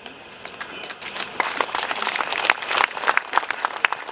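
Audience applauding. The clapping starts thin and swells over the first second and a half into a full, dense round.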